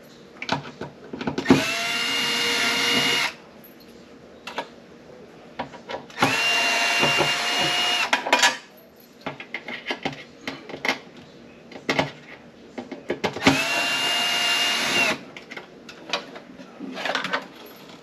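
Cordless drill/driver backing screws out of the refrigerator's interior panels, its motor whine rising quickly and then holding steady, in three runs of about two seconds each. Light clicks and knocks come between the runs.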